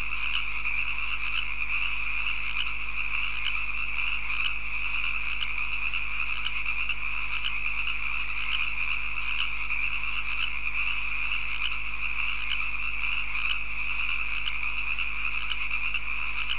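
Steady night chorus of frogs: a continuous shrill trill with a light pulse about twice a second, unchanging throughout.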